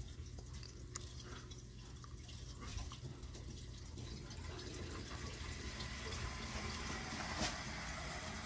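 Water starting to rush through the boiler's hydronic piping, a hiss that builds over the last few seconds, over a steady low hum; one sharp click a little after seven seconds in. The flow is the sign of a closed first-floor supply valve having cut off the zone.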